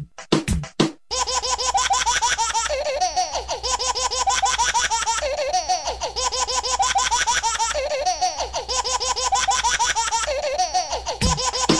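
A few drum-machine beats in the first second, then shrill, high-pitched laughter that repeats as a loop about every two and a half seconds.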